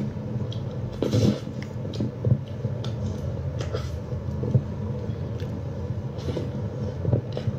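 Close-up chewing of a sandwich: wet mouth smacks and short clicks every second or so over a steady low hum.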